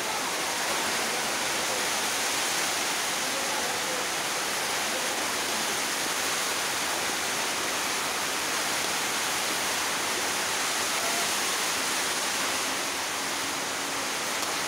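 Ground red chili frying in a metal wok over a gas flame, sizzling steadily with an even hiss.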